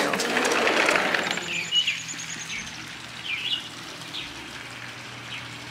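Backyard birds chirping, a few short high chirps over a quieter steady background, after a rush of noise in the first second or so.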